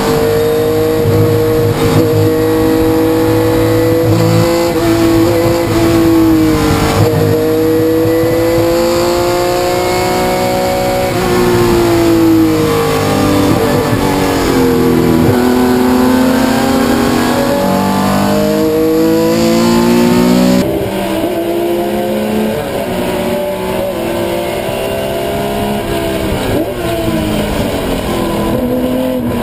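Porsche 911 RSR race car's air-cooled flat-six, heard from inside the cockpit at racing speed, its pitch climbing as it accelerates and dropping back for corners several times. About 20 seconds in, the sound cuts to a second Porsche's in-car audio, its engine likewise rising and falling.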